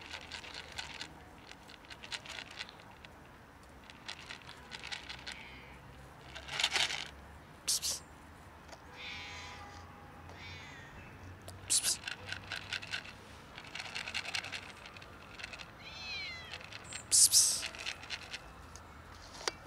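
Fluffy long-haired tabby cat meowing again and again in short, varied calls, some falling in pitch. A few brief loud rustles stand out among the calls.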